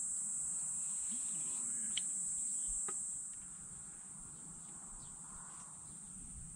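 Summer insects calling in a steady high-pitched drone, with a couple of faint clicks about two and three seconds in.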